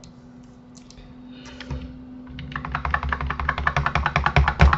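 Computer keyboard: the Ctrl and numpad plus keys tapped rapidly over and over, about ten clicks a second from about halfway through, after a few scattered single clicks.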